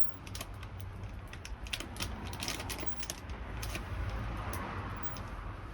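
Campfire crackling: irregular sharp pops and snaps from the burning wood over a low steady rumble.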